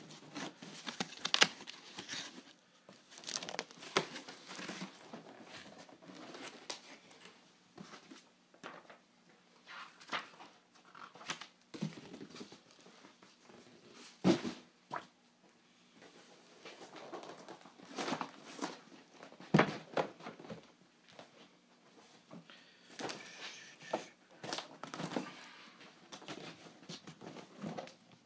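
Cardboard shipping box and its packing being handled and pulled apart. Irregular rustling, crinkling and tearing, with a few sharper knocks.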